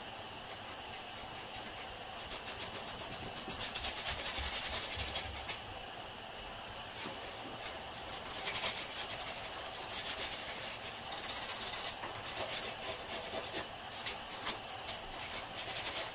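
Stain being rubbed by hand into rough pallet wood: quick back-and-forth scrubbing strokes in spells, with a short pause about six seconds in.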